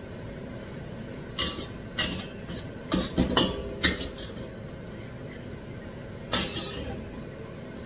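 Metal wok ladle scraping and clinking against a steel wok while stir-fried mushrooms are scooped out into a ceramic dish: a handful of short scrapes in the first four seconds and a longer scrape about six seconds in, over a steady low hum.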